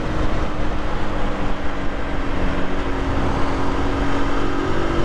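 Aprilia RS 125's 125 cc four-stroke single-cylinder engine running steadily at a city cruising speed, with wind and road noise rushing over the microphone. The engine note drops slightly as the bike eases off, then picks up again near the end.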